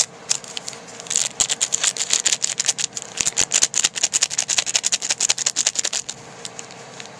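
Foil wrapper of a Magic: The Gathering booster pack crinkling and crackling as it is pulled and torn open by hand, a quick run of sharp crackles that stops about six seconds in.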